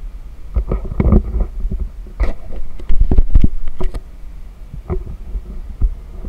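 Wind buffeting a moving camera's microphone during a ride, with a steady low rumble and irregular thumps and gusts, loudest about three seconds in.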